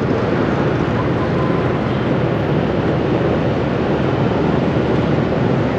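Steady city traffic noise: the running engines of motorbikes and cars and the rush of road noise, heard while moving along a busy street.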